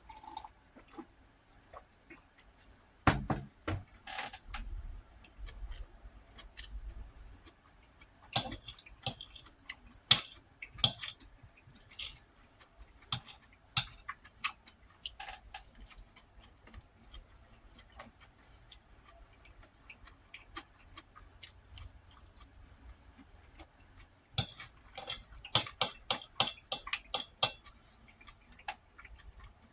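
Eating sounds: a utensil clicking and tapping against a dish, in sharp scattered clicks with a quick run of them near the end.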